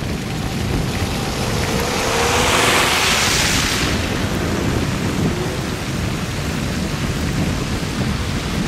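Car driving on a snow- and slush-covered road, heard from inside the car: steady tyre and road rumble with a rushing hiss that swells for a couple of seconds in the middle.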